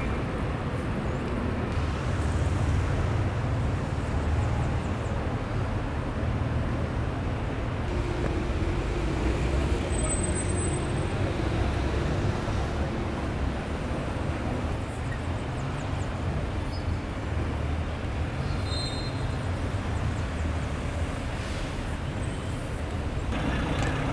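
Steady outdoor background noise, mostly a low rumble of road traffic.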